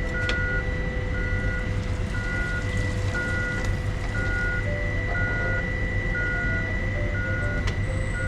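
Forklift reverse alarm beeping steadily, about once a second, over the low, steady running of the engine.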